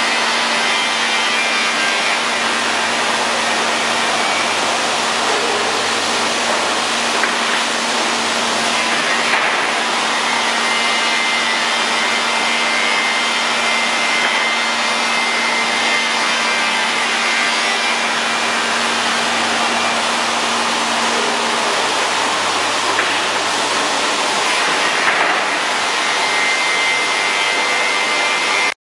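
Industrial panel sanding machine running with its abrasive belts working wood-based panels: a loud, steady grinding noise with a constant hum through it, cutting off suddenly near the end.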